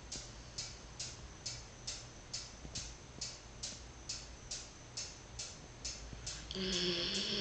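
Steady ticking, a little over two ticks a second, in a lull between a sleeping border collie's snores; the dog's snoring starts up again near the end.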